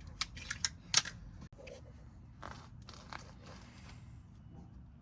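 Hand wire strippers working on a thin wire: a quick run of sharp snipping clicks in the first second, the loudest about a second in, then a couple of softer scraping strokes as the insulation is worked off.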